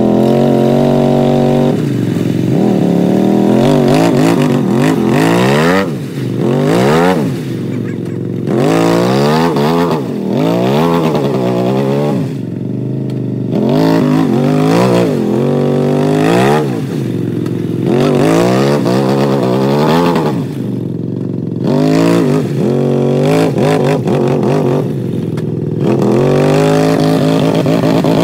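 ATV engines revving up and down over and over, pitch rising and falling every second or two, as the machines strain in deep mud with one quad stuck to its axles.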